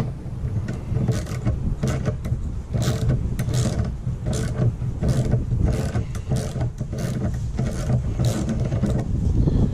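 Small metal tool clicking against the nut and spindle of a wiper arm as it is tightened down: a run of short, sharp metallic clicks, about two a second, over a steady low rumble.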